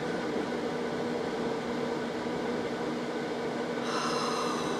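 Blizzard wind of hurricane strength blowing steadily against an RV, heard from inside the cabin, with a steady low hum underneath and a faint whistle coming in near the end. The gusts are strong enough to rock the RV and lift its tires off the ground.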